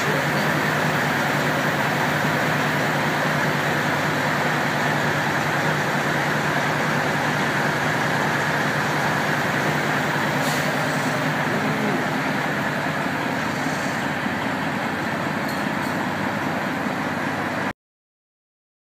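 Semi truck's diesel engine idling steadily with a constant low hum and hiss, cutting off suddenly near the end.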